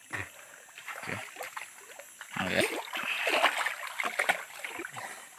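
Water splashing and dripping beside a wooden boat as a string of speared river fish is lifted out of the water, with a few short sharp knocks.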